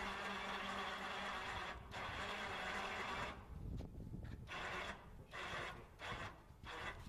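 12-volt electric winch built into a seesaw loading ramp, running steadily as it moves a heavy load. It dips briefly near two seconds and stops about three seconds in, then is switched on again in four short bursts.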